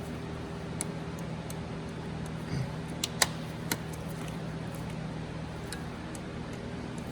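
The cover around a mega fuse on the main battery cable being cut open: a few sharp clicks and snips, the loudest about three seconds in, over a steady background hum.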